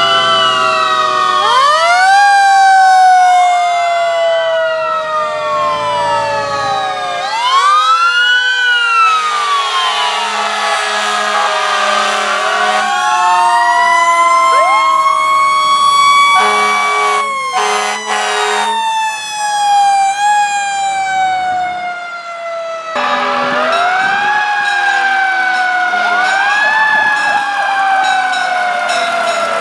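Several fire engine sirens sounding at once, overlapping: wails rising and falling, some winding slowly down over several seconds. Short horn blasts sound about midway.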